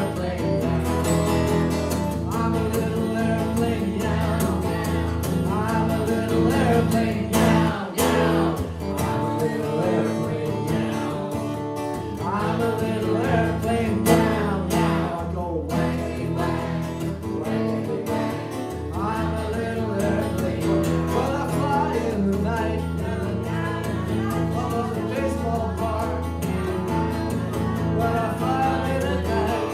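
Live acoustic guitar strummed steadily under singing voices.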